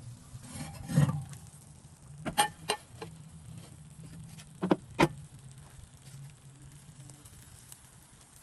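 Knocks and clunks of a cast iron pan being handled and set down: the loudest, a heavy clunk, about a second in, then two pairs of sharper knocks, one a little before the middle and one about halfway through.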